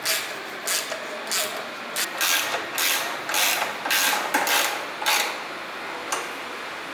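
A ratchet wrench worked in quick strokes, a short clicking burst about twice a second, stopping about five seconds in with one last stroke a second later.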